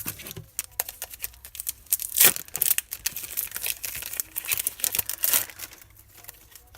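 A foil trading-card pack being torn open and its wrapper crinkled by hand: a dense run of crackles and tearing, loudest about two seconds in.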